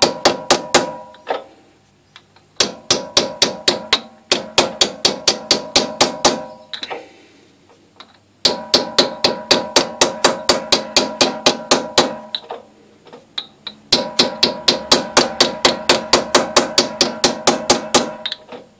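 An aluminium bar tapping the rim of a steel 09G solenoid case held in a lathe chuck, peening the case closed onto the valve housing. The taps come in four runs of about five a second, each with a metallic ring, with short pauses between runs as the chuck is turned.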